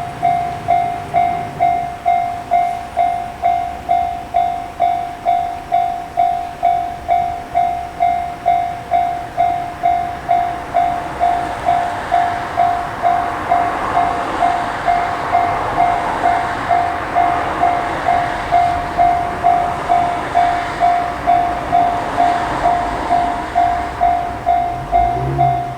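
Japanese level crossing alarm ringing its repeated 'kan-kan' strike, about two a second, steady throughout. A train passes the crossing, its running noise building from about ten seconds in and fading near the end.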